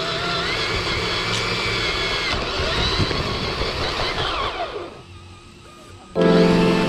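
Radio-controlled car running over grass, its motor whining in gliding pitches over rough driving noise. The noise dies away about five seconds in, and background music starts near the end.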